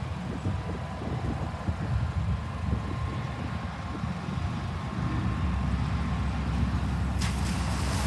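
Distant freight train rumbling past, with wind buffeting the microphone; the rumble grows louder about five seconds in. A faint steady high whine runs above it from about a second in.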